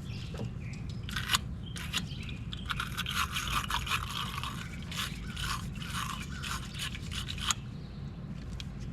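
A stiff brush scrubbing a corroded car battery terminal with baking soda: a couple of sharp clicks, then rapid back-and-forth scraping strokes from about three seconds in, stopping about a second before the end, over a low steady hum.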